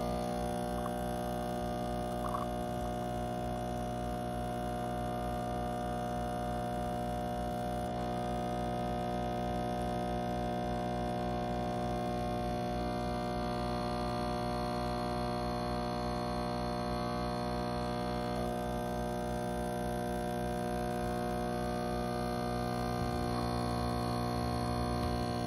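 Breville espresso machine's pump humming steadily while a shot of espresso is pulled.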